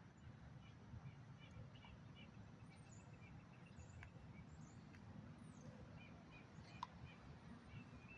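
Faint birds chirping here and there over a steady low rumble of outdoor background noise, with a single sharp click about seven seconds in.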